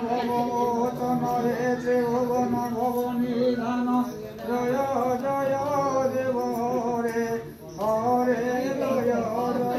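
A Hindu priest chanting mantras in long, held, sung tones, pausing for breath about four seconds in and again near the end.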